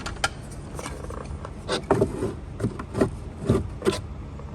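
Plastic cup-holder inserts being handled and fitted into a car's center console: a string of irregular sharp clicks and knocks, getting louder from about a second and a half in.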